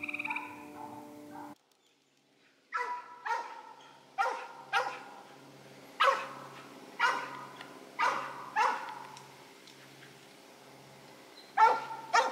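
Mountain cur's tree bark: a run of single barks, about one to two a second with short gaps, the sign that the dog has a raccoon treed. Before the barking, the first second and a half holds a steady mix of tones that cuts off abruptly.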